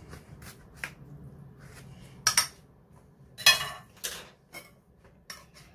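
A metal knife cutting through a baked kunafa and clinking and scraping against the metal baking pan: a run of small clicks, with two loud clanks about two and a half and three and a half seconds in.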